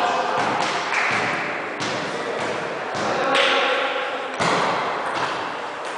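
Irregular thuds of forearms and hands striking and blocking one another in a partner drill, each hit followed by the brief rustle of jacket sleeves sliding together.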